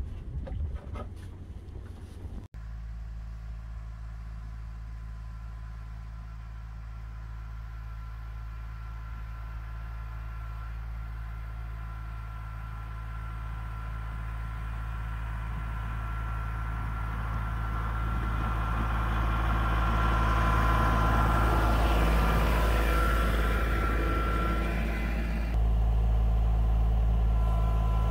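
Kubota L3901 compact tractor's diesel engine running steadily, growing gradually louder over the first two thirds.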